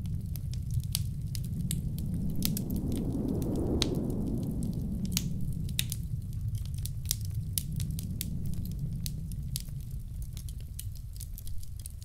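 Wood fire crackling in a fireplace, with sharp pops and snaps several times a second. Underneath is a low rumble of blizzard wind that swells about three to four seconds in.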